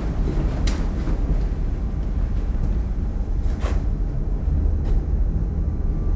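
Footsteps on a hard corridor floor, a few separate sharp taps over a steady low rumble.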